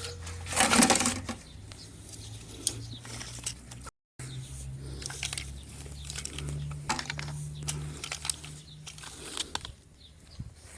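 A steady low electrical hum, with scattered clicks and rustling of handling over it. A loud rustle comes just under a second in, the sound drops out for a moment about four seconds in, and the hum returns with a slightly higher tone added.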